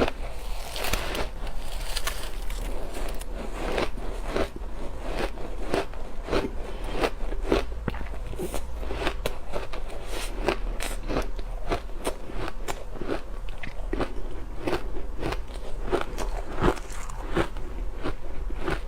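Ice being bitten and chewed close to the microphone: a continuous run of crisp, crackling crunches, several a second, without pause.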